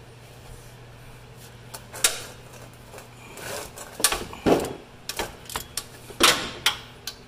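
Socket ratchet clicking and clinking against an alternator mounting bolt while the bolt is being loosened for alternator removal. The clicks and knocks come irregularly, more and louder in the second half.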